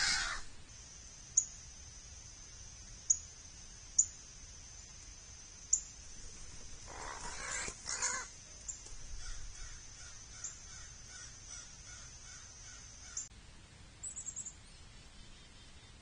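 Crows cawing: a harsh caw right at the start and two more about seven to eight seconds in, over a thin, steady high whine.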